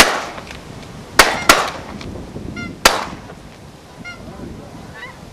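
Four shotgun blasts: one at the start, two in quick succession about a second in, and a fourth near the three-second mark. Geese honk overhead between the shots.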